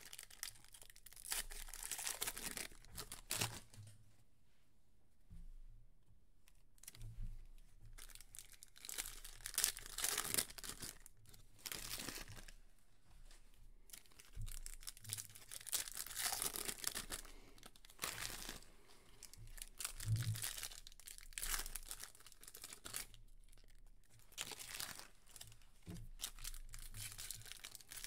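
Foil-wrapped 2021 Panini Prizm UFC trading card packs being torn open and crinkled by hand, with cards handled between the hands. The tearing and crinkling come in short, irregular bursts every second or two.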